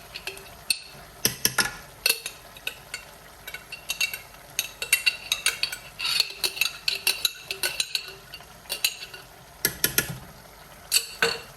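A spoon stirring chicken mince in tomato sauce in a cooking pan, with repeated sharp clinks and scrapes of the spoon against the pan.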